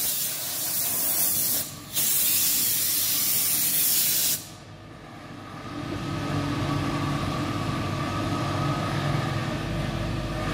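Compressed air hissing in a loud, even blast for about four seconds, with a short break near two seconds, then cutting off sharply. A steady workshop machine hum with a low held tone comes up a second or so later and runs on.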